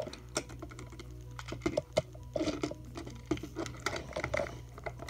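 Plastic clicks and rattles of a small Transformers Earthrise Cliffjumper action figure being handled and its parts pressed and snapped into place for car mode, in irregular quick ticks.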